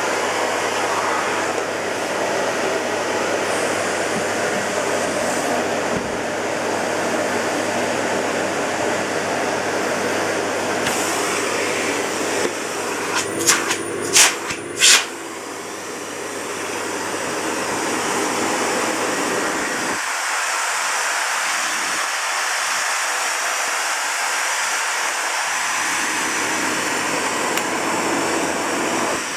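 Miele S256i canister vacuum cleaner running with a steady whooshing rush of motor and air. A few sharp clicks or knocks come about halfway through, then the level dips and climbs back over a few seconds.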